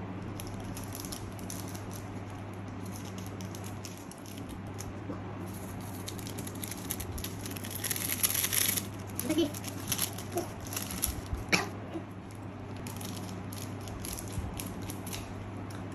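Small plastic seasoning sachets crinkling and rustling as they are snipped open with scissors and squeezed out over a pot of instant noodles, with a steady low hum underneath. The rustling is loudest about eight seconds in.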